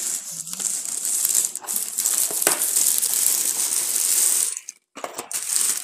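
Thin plastic carrier bag rustling and crinkling as takeaway food boxes are pulled out of it, with a brief knock about two and a half seconds in.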